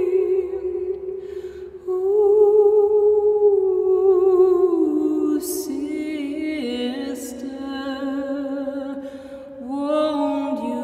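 A woman's voice singing a slow wordless melody, held notes with vibrato that step downward in pitch, in a soul/gospel style.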